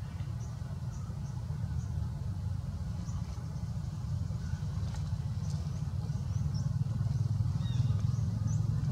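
A steady low rumble that grows louder toward the end, with faint short high-pitched chirps scattered through it.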